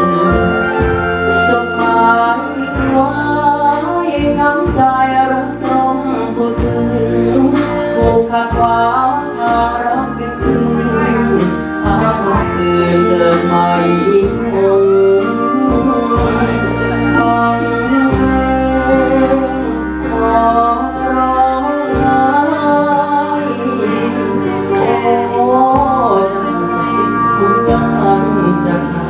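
A man singing a Thai luk thung song into a microphone over loud backing music with a steady beat.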